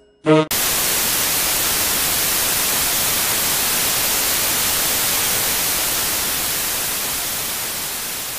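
Hiss of television static, an even hiss that starts suddenly just after a brief musical note and slowly fades near the end.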